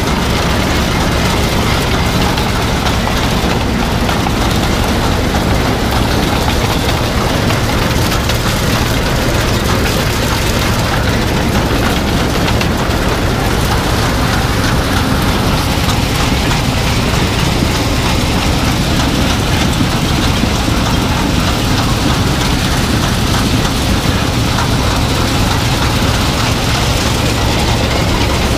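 New Holland TR70 combine running at close range while harvesting soybeans: a loud, steady mechanical noise of the header and threshing, with the engine's low hum underneath.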